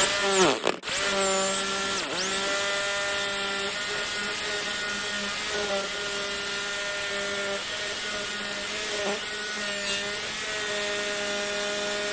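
Bosch GST 680 jigsaw running and cutting through a 50 mm wooden plank: a steady motor whine over the rasp of the blade, the pitch dipping briefly about half a second and two seconds in as the blade loads in the wood.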